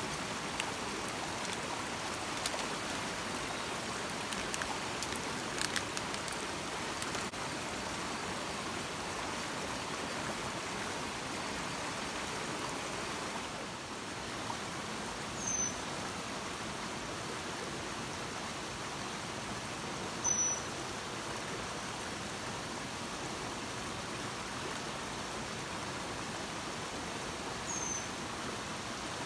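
Steady rushing of a shallow rocky stream, with a few light clicks in the first seconds and three short high chirps later on.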